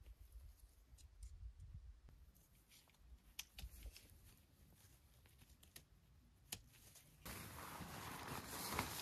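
Faint clicks and light rustling of a backpacking tent being pitched: pole and clip handling on the tent body. About seven seconds in, a louder steady rushing noise sets in as the nylon rainfly is thrown over the tent and billows in the wind.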